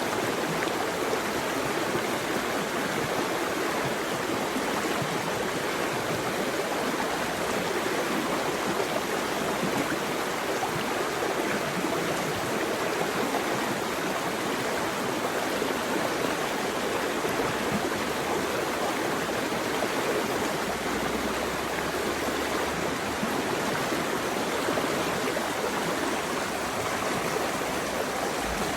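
Flowing water rushing steadily and evenly, without pause or change.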